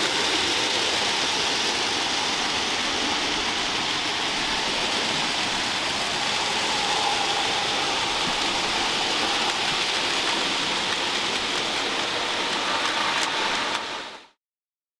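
Model railway trains running: a steady hiss and whir of small wheels on rail and little motors, which fades out quickly near the end.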